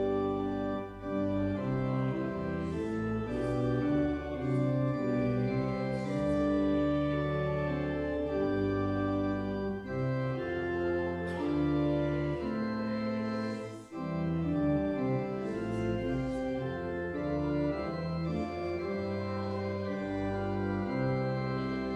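Organ postlude: sustained chords moving from one to the next every second or so, with a brief pause about fourteen seconds in.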